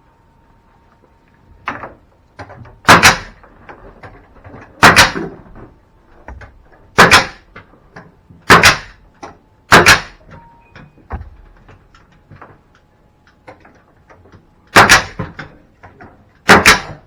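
Hammer driving nails while the new attic ladder is fastened in: about seven loud, sharp blows spaced irregularly one to two seconds apart, with softer taps between.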